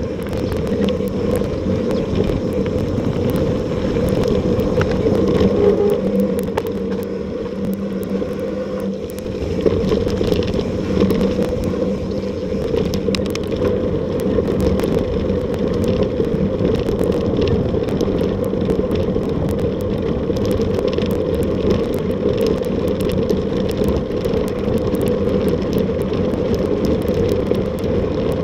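Mountain bike ridden fast, heard from a bike-mounted action camera: wind rushing over the camera and tyres rolling on a dirt trail. From about ten seconds in, frequent sharp clicks and rattles as the bike jolts over cobblestones.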